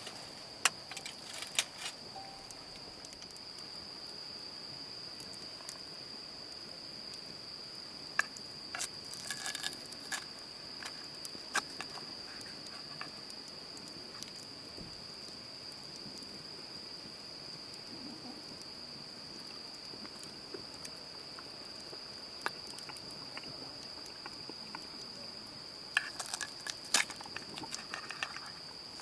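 A steady, high, unbroken chorus of crickets singing, with scattered small clicks and knocks, the loudest bunched together twice.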